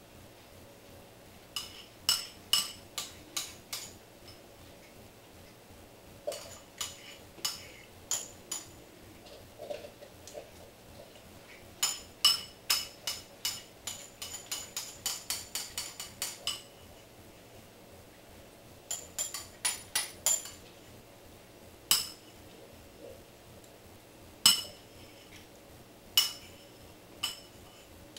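An eating utensil clinking against a ceramic bowl as food is scooped out: runs of quick, sharp clinks with a brief ringing tone, separated by pauses, with single clinks near the end.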